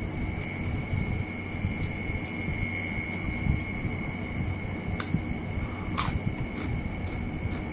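Chewing and mouth sounds from eating Takis-coated corn on the cob, over a steady background hum with a thin high whine. Two sharp clicks come about five and six seconds in.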